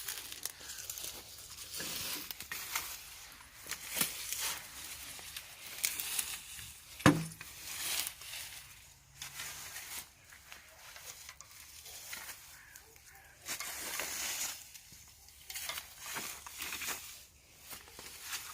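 Irregular rustling and crinkling, with scattered clicks and one sharp knock about seven seconds in.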